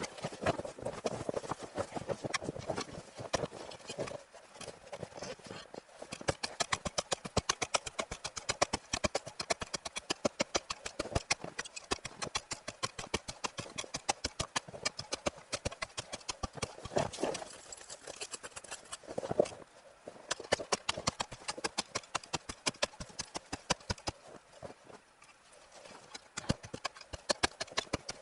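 Footsteps crunching on snow, a steady walking rhythm of about two steps a second with a short pause near the end.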